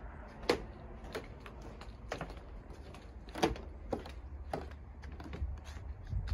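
Footsteps on a wooden boardwalk deck: sharp knocking steps at a walking pace, about one every half second to second.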